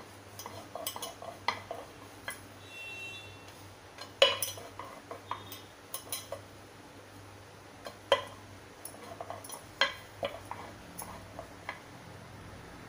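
Rolling pin rolling out thin dough on a round metal rolling board, with irregular clicks and knocks as the pin taps and rattles against the metal; the loudest knock comes about four seconds in.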